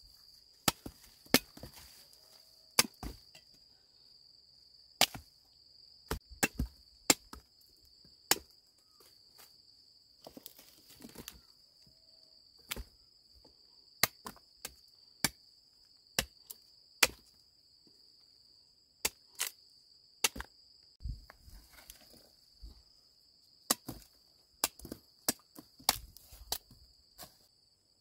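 Machete chopping cassava roots off the stem: a string of sharp, irregularly spaced chops. Under them insects keep up a steady high-pitched drone.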